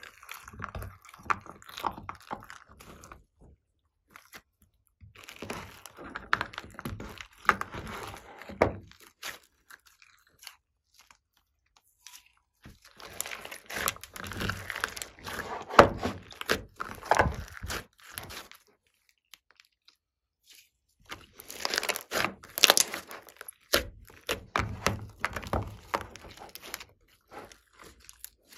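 Glossy slime being squeezed and kneaded by hand, making dense crackling and popping clicks. It comes in four spells with silent breaks between them.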